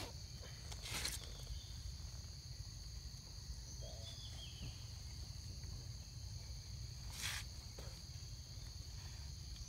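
Insects calling in a steady, unbroken high drone at two pitches over a low rumble, with two short rustles, one about a second in and one about seven seconds in.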